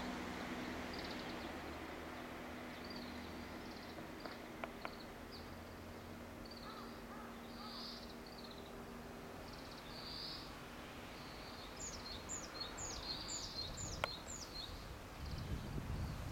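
Outdoor ambience with small birds chirping on and off; late on, a bird gives a quick run of about six falling notes. A steady low hum sits under the first half, and a low rumble comes in near the end.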